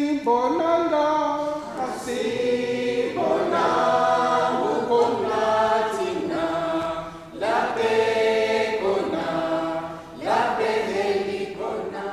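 Mixed choir of men's and women's voices singing unaccompanied in held phrases, pausing briefly twice, about seven and ten seconds in.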